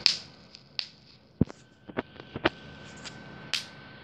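Bubble wrap being popped by hand: about a dozen sharp pops at uneven intervals, the loudest right at the start.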